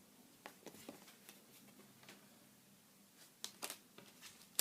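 A few faint, short clicks and ticks, scattered in two small clusters, against quiet room tone.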